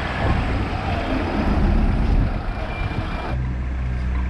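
Busy street traffic: a dense wash of vehicle engines and road noise, with a brief high-pitched tone about two seconds in. About three and a half seconds in the sound switches abruptly to a steadier low engine hum.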